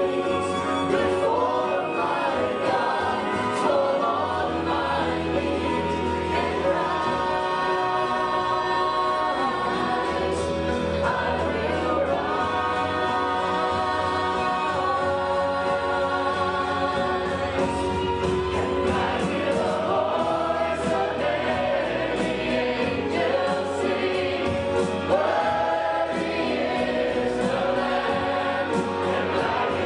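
A choir singing a gospel-style worship song, led by a male worship leader singing into a microphone.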